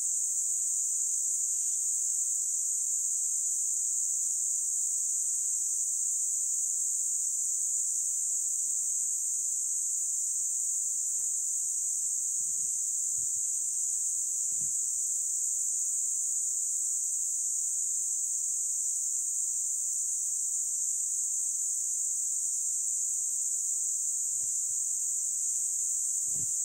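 Steady, high-pitched insect drone in the forest, unchanging throughout, with a few faint low thuds about halfway through and near the end.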